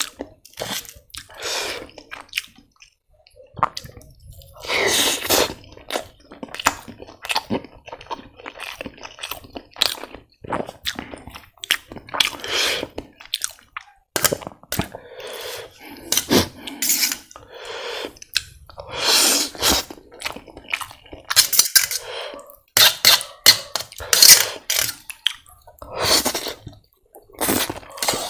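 Close-up eating of instant ramen noodles: long noisy slurps every couple of seconds, with chewing and short wet clicks and smacks between them.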